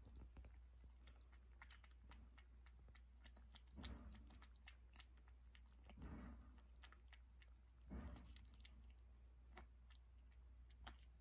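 Brown-tabby-and-white kitten eating wet cat food from a ceramic bowl: soft, quick chewing and mouth clicks, with a few slightly louder smacks roughly every two seconds.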